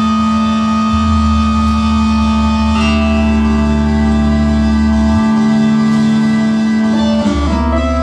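Electronic noise-music drone: many steady layered tones over a low buzzing bass, played on a small knob-controlled electronic box. The set of tones shifts about three seconds in, the bass cuts out for about two seconds after the five-second mark, and the pitch slides near the end.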